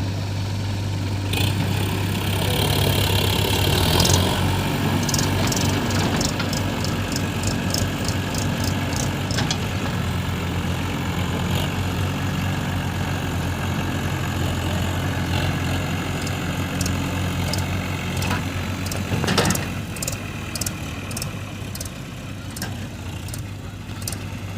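Heavy diesel engine running steadily at idle, with runs of sharp ticks and one loud clatter about nineteen seconds in.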